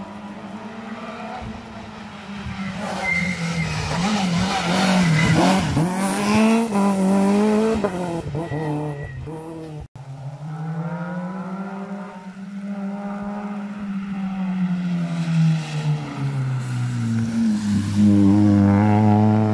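Rally cars at speed: one approaches with its engine revving up and down through the gears, loudest around the middle. After a sudden cut another approaches and passes close near the end, the loudest moment.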